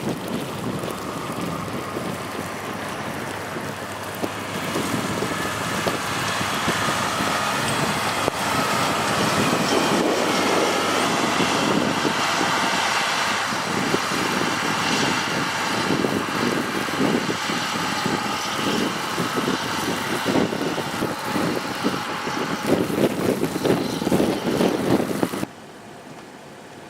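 Strong blizzard wind blowing and buffeting the microphone over the steady running of a nearby vehicle. The sound cuts off suddenly near the end to a much quieter background.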